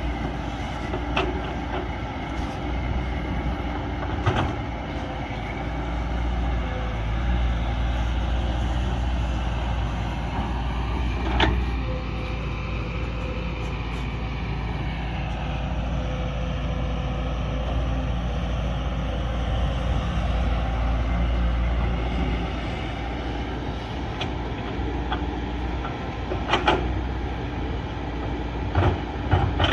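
Excavator's diesel engine running steadily while digging, with a few sharp clanks and knocks from the bucket and arm working the ground.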